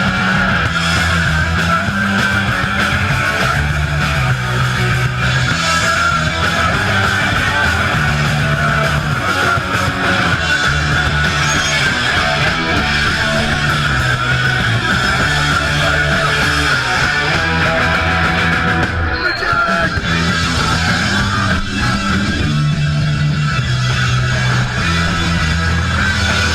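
Punk rock band playing live and loud: distorted electric guitar over a repeating bass riff and drums, all running together without a break.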